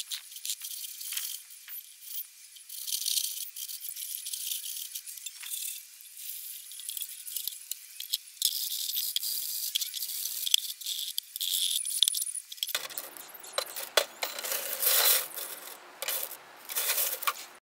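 Small pieces of tumbled glass clinking and rattling against each other as they are stirred and spread by hand. From about 13 seconds in the clatter gets fuller and heavier as the glass is moved on a wire-mesh screen.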